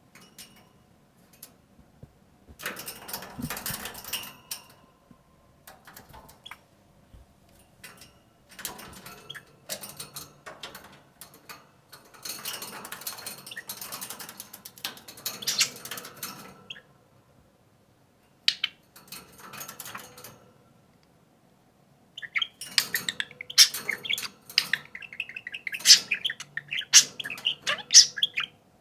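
Pet budgerigars chattering and warbling in irregular bursts with short pauses, turning into dense, busy chirping over the last several seconds.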